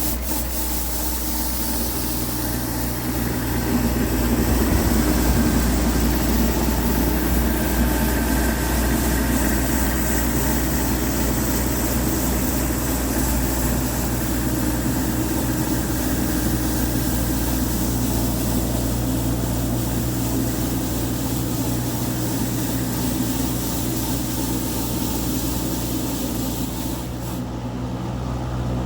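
An engine running steadily at idle, a constant low drone.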